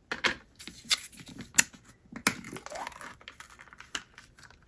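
A metal spoon scraping and tapping inside a plastic tub as thick soup is scooped out, with irregular sharp clicks and crinkling of the thin plastic container.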